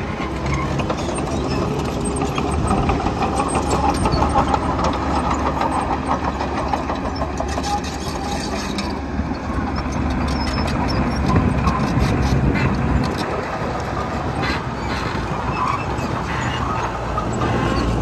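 Heavy diesel engine of a tracked earthmoving machine running steadily as it pushes and levels soil, with scattered short clanks.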